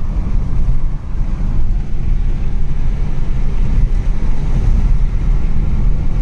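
Steady low rumble of tyre and wind noise inside a car's cabin while driving at highway speed.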